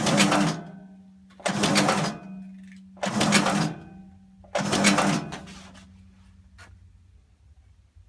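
Nagel Multinak S power-operated twin-headed pad stapler cycling four times, about one and a half seconds apart, each stroke driving and power-clenching flat staples. A steady motor hum runs between the strokes and dies away after the last one.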